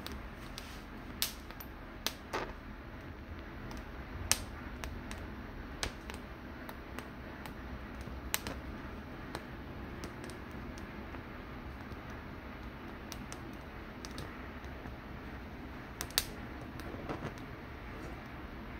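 Kitchen handling sounds while working with roasted poblano peppers: scattered light clicks and taps at irregular intervals, a few sharper than the rest, over a steady low hum.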